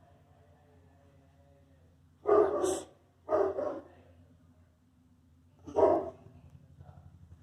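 Three barks: two close together about two seconds in, and a third a couple of seconds later.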